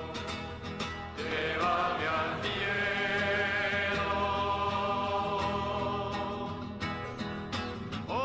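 A slow church hymn being sung, with long held notes.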